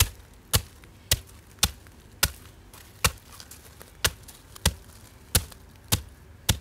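Homemade wooden hand tamper pounding a wetted layer of fine 10–15 mm crushed stone, about a dozen sharp thuds roughly every half second with a short pause a little over two seconds in. This is compaction of a 5 cm crushed-stone base layer under paving.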